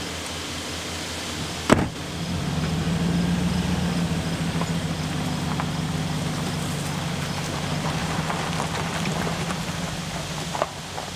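A pickup truck's door slams shut, then the engine comes on at about two seconds and runs steadily as the truck pulls away along a dirt road. Near the end there is a short click and the engine sound dips.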